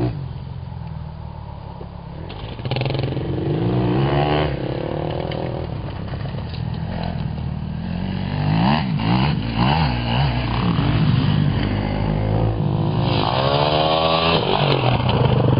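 Dirt bike engine revving up and down as the rider works along the track, with a steep climb in revs near the end as the bike launches over the step-up jump.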